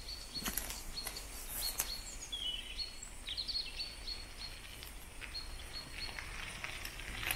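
Small birds singing with short high chirps and brief trills on and off, over a low steady rumble. A few faint clicks are heard.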